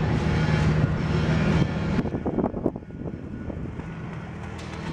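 Steady machine hum with a loud hiss that cuts off suddenly about two seconds in, followed by quieter irregular knocks and clatter.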